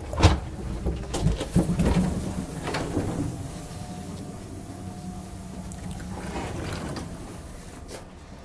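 Footsteps and knocks as someone walks through a passenger train's gangway into the coach. The steady low hum of the stationary coach runs underneath and is left on its own after about three seconds.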